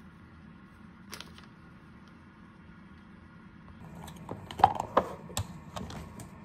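Small glass baby-food storage jar and its plastic lid being handled: a single click about a second in, then a quick run of clicks and knocks of lid and glass about four seconds in as the jar is taken apart and set down on the counter.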